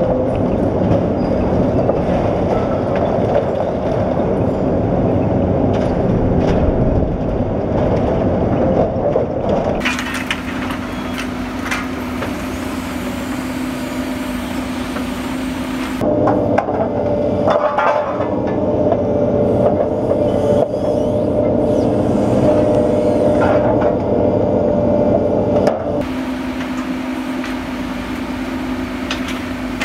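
Demolition excavators working: diesel engines and hydraulics running steadily under clanks, cracks and crunches of steel and rubble being sheared and dropped. The sound changes abruptly three times as one stretch of machine noise gives way to another.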